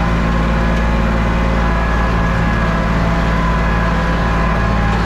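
Engine running steadily at a constant speed, a loud, even hum without changes in pitch.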